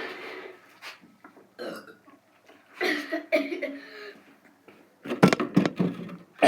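A person burping after chugging sparkling water, with one long burp about three seconds in. A burst of loud, sharp sounds follows near the end.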